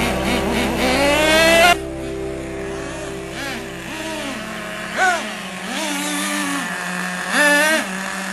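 Radio-controlled model cars' motors revving in short bursts, the whine rising and falling in pitch. A long, loud rise in the first two seconds cuts off abruptly, and several shorter rises and falls follow.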